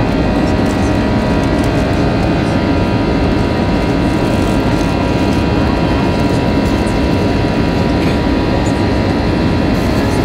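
Jet engines of an Airbus A320-family airliner heard from inside the cabin during the climb after takeoff: a loud, even rush with several steady whining tones over it.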